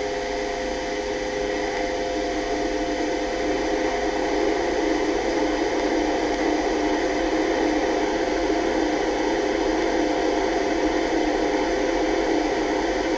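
Lift car travelling in its shaft: a steady hum with rushing air noise, growing louder about four seconds in and then holding level.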